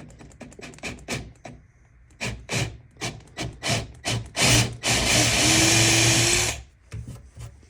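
A run of short, rhythmic scraping strokes on wood, then an electric drill running for about two seconds with a steady whine and cutting off: a large bit boring a hole into the wooden tabletop.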